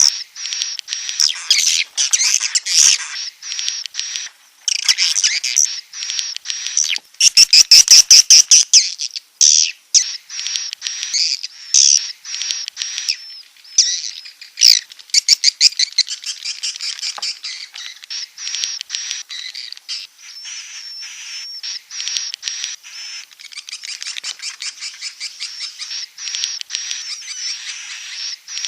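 Recorded swiftlet lure call (suara panggil walet) of the kind used to draw edible-nest swiftlets into a bird house: rapid, densely repeated high chirps and chattering twitters, louder in the first half and more even near the end.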